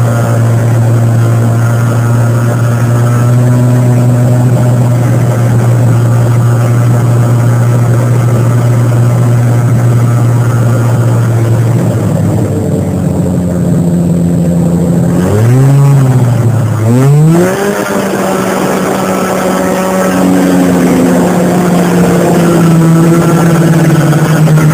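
1989 Arctic Cat Jag 340 snowmobile's two-stroke twin engine, heard from on board, running at a steady pitch while cruising. About two-thirds of the way through it revs up and down a few times in quick succession, then holds a higher steady pitch.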